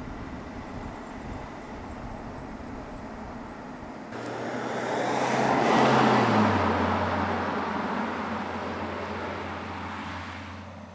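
Mercedes-Benz CLS driving past at speed. About four seconds in, the sound comes in abruptly and swells, with the engine note dropping in pitch as the car passes, then fades as it drives away. Before that, a low steady rumble.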